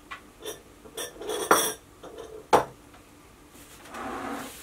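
Metal ice cream bucket with its wire handle being lifted out of the Cuisinart ice cream maker and set down on a worktop: a few metallic clinks and knocks, two sharp ones about one and a half and two and a half seconds in, then a soft rustling noise near the end.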